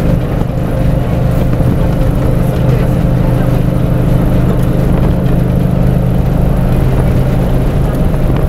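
MSRTC bus's diesel engine running at a steady cruising speed, heard from inside the cabin as a steady hum over road and wind noise.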